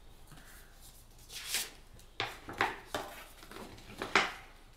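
Pages of a book being opened and leafed through: a series of short papery rustles, about six of them.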